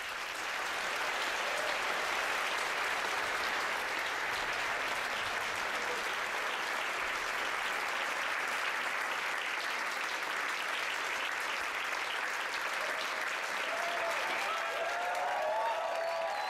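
Concert-hall audience applauding steadily, with a few cheers rising over the clapping near the end.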